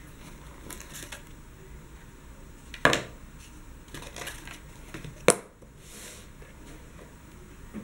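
Hands handling a cardboard watch box and its paper booklet: light rustling and scraping, with two sharp knocks about three and five seconds in.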